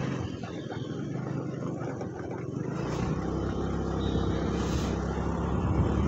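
Motor scooter's small engine running while riding along a road, with wind and tyre noise. The low rumble gets louder about three seconds in as it picks up speed.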